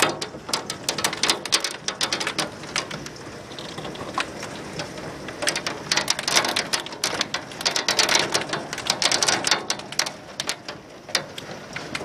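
Golf-ball-size hailstones pelting down in a dense clatter of hard impacts. The clatter is heaviest in the first couple of seconds and again from about six to ten seconds in.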